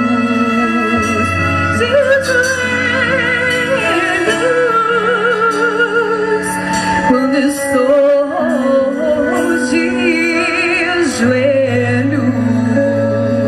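Orchestra accompanying a female solo singer in a gospel hymn; the voice holds long notes with wide vibrato over sustained orchestral chords.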